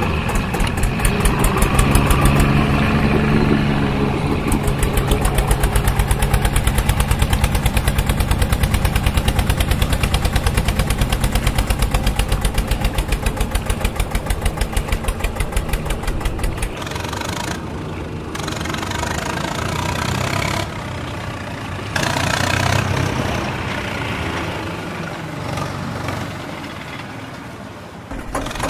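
Engine running with an even, fast knocking rhythm. About seventeen seconds in, the deep low end drops away and the sound becomes patchier and a little quieter.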